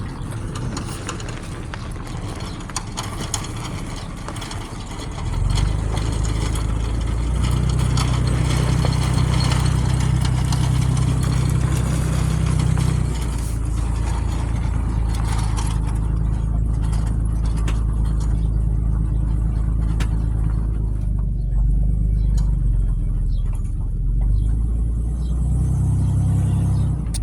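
Nissan's engine heard from inside the cab, running quietly at first, then from about five seconds in droning louder and steadily as the vehicle pulls away towing a lawnmower.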